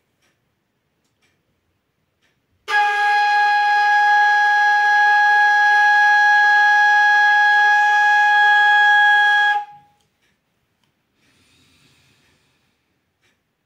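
Bansuri (bamboo flute) holding one long, steady note for about seven seconds, starting about three seconds in and stopping cleanly; a long-note exercise in sargam practice.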